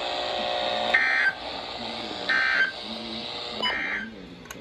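NOAA Weather Radio receiver playing the SAME end-of-message data bursts: three short, high, buzzing digital bursts about a second and a half apart, over steady radio hiss. These bursts mark the end of the tornado warning broadcast.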